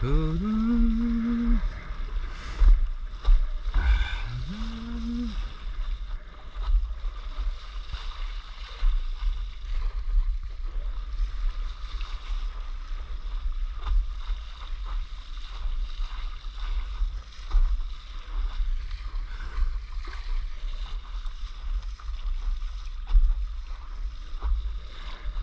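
Wind buffeting the microphone and water rushing and splashing under a windsurf board sailing through chop, gusting up and down throughout.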